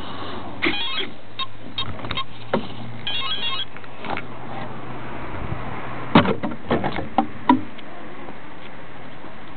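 Clicks and knocks of a small electric model plane being handled and set down on the ground, its propeller not yet turning, with a low steady hum that stops about six seconds in.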